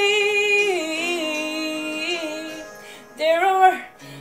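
A woman singing a country song: she holds a long note that steps down lower about a second in and fades, then starts a new short rising phrase near the end.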